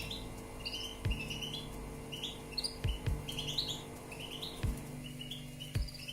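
Young canary giving short, rising chirps over and over, with a few dull low thumps and a steady low hum underneath.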